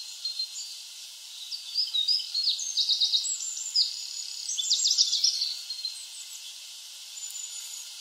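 Goldcrest singing: a very high, thin phrase of quickly repeated notes, starting about a second and a half in and running for about four seconds, over a faint steady hiss.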